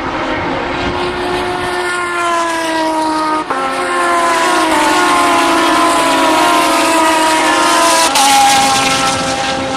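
Renault Mégane Trophy race car's 3.5-litre V6 running hard along the circuit, its engine note gliding slowly in pitch, with two sharp breaks: one about a third of the way in and one near the end.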